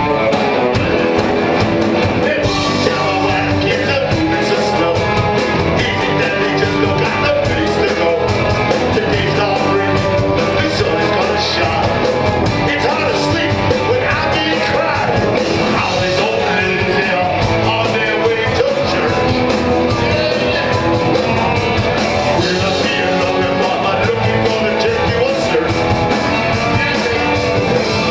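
A live rock band with electric guitars playing behind a male singer, recorded from within the audience.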